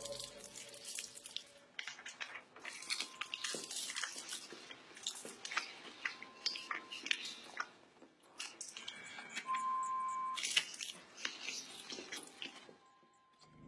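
Irregular crunching and crackling clicks, as of something being crushed. A short steady electronic beep sounds about ten seconds in, with fainter beeps at the same pitch before and after it.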